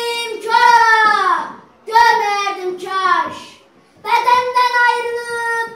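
A boy singing unaccompanied: three phrases of long held notes, each falling away in pitch at its end.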